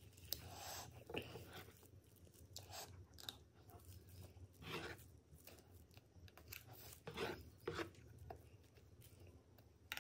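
Close-up eating sounds: a spoon scooping soft strawberry cream cake, then chewing and mouth sounds of the cake, in irregular short bursts.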